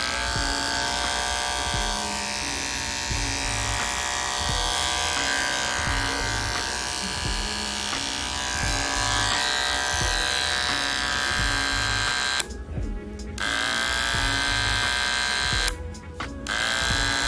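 Cordless Wahl hair clipper running with a steady buzz. Near the end it is switched off twice for about a second each time, and it spins back up in pitch after each restart. Background music with a steady beat plays underneath.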